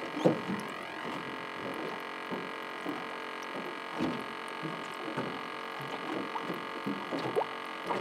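A steady electric hum, with a sharp knock just after the start and soft irregular handling noises as a small mangrove snapper is swung aboard on the line and held in the hand.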